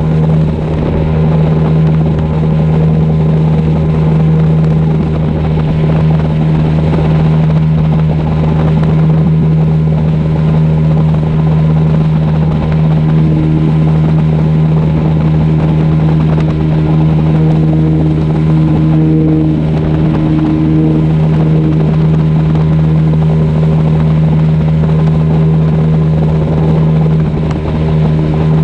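Outboard motor of a flats skiff running steadily at cruising speed: a constant droning hum over a steady rushing noise, dipping briefly near the end.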